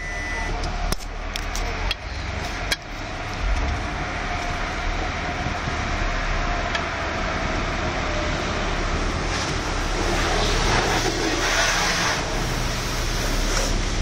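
Automatic car wash heard from inside the car's cabin: a steady hum of wash machinery and water spraying over the body, with a few sharp clicks in the first three seconds and louder spray about ten to twelve seconds in.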